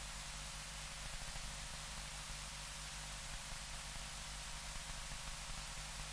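Steady hiss with a low electrical hum from an open microphone and sound-system line that nobody is speaking into.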